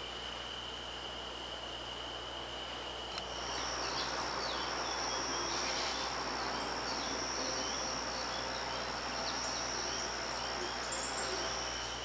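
Insects trilling steadily as one unbroken high tone, which gives way about three seconds in to a louder, higher steady insect trill with many short, falling bird chip notes scattered over it.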